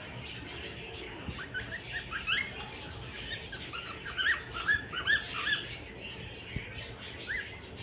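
Cockatiel chirping: a quick run of short, rising chirps, then a pause and one last chirp near the end. A soft knock comes shortly before that last chirp.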